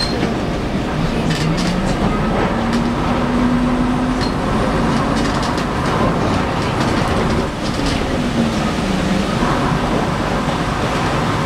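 Vintage bus running along a road, heard from inside the saloon: steady engine and transmission noise with a whine that rises as it picks up speed, holds, then falls away as it slows, over rattles and clicks from the body.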